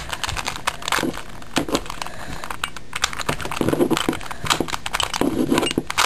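Rubik's cube faces being turned quickly by hand: a fast, uneven run of plastic clicks and clacks. The moves are the R' D' R D corner-twisting sequence, repeated.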